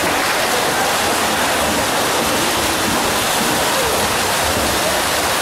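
Steady splashing and churning of water from many water polo players swimming hard down the pool.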